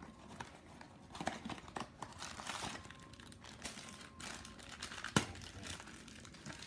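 Packaging of a Funko Mystery Mini blind box being torn open and crinkled in the hands: irregular crackling and tearing with small clicks, and one sharp click about five seconds in.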